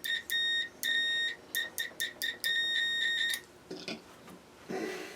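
Multimeter's continuity beeper sounding in a string of uneven beeps, short chirps and a longer tone of about a second, as the probes make and break contact; each beep signals a closed circuit between the points touched. A couple of faint knocks follow near the end.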